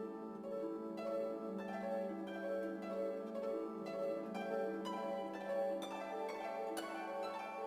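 Background instrumental music: a run of quick plucked-string notes over a steady low note.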